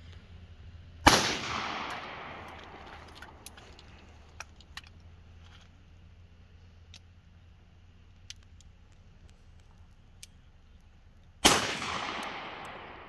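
Two single gunshots from a Firearms International Bronco survival gun, about a second in and again near the end, each followed by its echo dying away over a second or two. Faint clicks in between.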